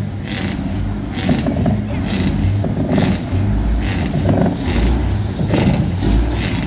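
Diesel semi-truck engines rumbling low as the trucks roll slowly past.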